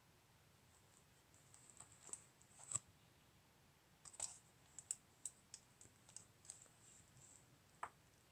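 Faint clicking from a laptop being operated: a few separate clicks, then a quick run of about a dozen clicks over the middle few seconds, and a single click near the end.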